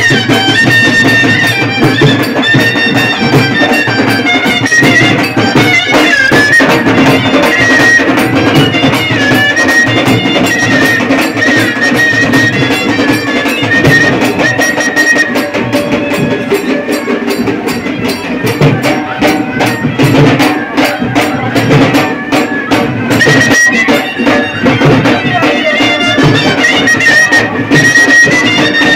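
Loud procession music: a reedy wind-instrument melody held over fast, heavy drumming.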